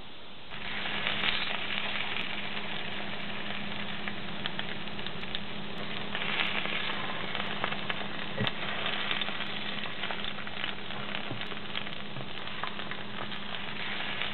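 Plantain slices frying in a shallow layer of hot oil: steady sizzling with many small crackling pops, starting about half a second in.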